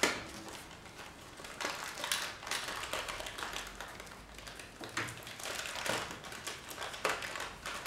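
A small paper packet being handled and torn at by hand: irregular crinkling, crackling and scattered ticks.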